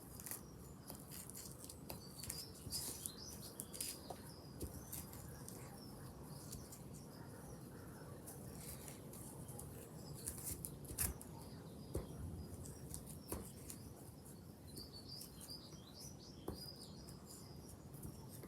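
Scattered soft taps and scrapes of a metal spoon rubbing grass pressed on paper to print its colour, with small birds chirping in the background near the start and again near the end.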